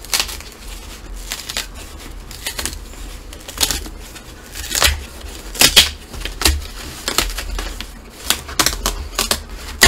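Book packaging being torn and pulled open by hand: a run of irregular crinkling, ripping and scraping with sharp crackles, loudest in the second half.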